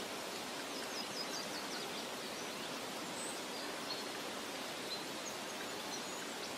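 Steady rushing hiss, like running water or wind, with a few faint high chirps like distant birds.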